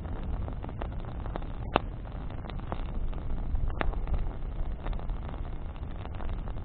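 Campfire of burning branches with a steady low rumble and scattered sharp crackles and pops, the loudest two about two seconds apart near the middle.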